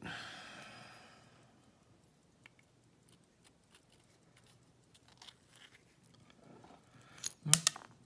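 A brass euro lock cylinder being gutted: quiet handling and faint scraping as a plug follower pushes the core through, then a quick cluster of sharp metallic clicks near the end as the plug comes out and a pin falls free.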